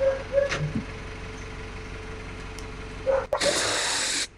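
Telehandler engine idling steadily, with a few light knocks near the start; about three seconds in, a cordless drill runs in one loud burst of about a second, driving a screw into the steel-stud form.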